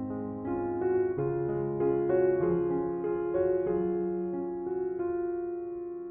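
Background piano music: a slow, gentle melody of sustained notes over held chords.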